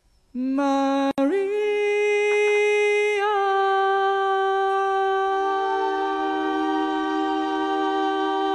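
A man singing solo into a microphone: the voice comes in a moment after the start, glides up to a higher note with a brief break just after a second, then holds one long note with growing vibrato. A lower steady accompaniment tone joins under it about halfway through.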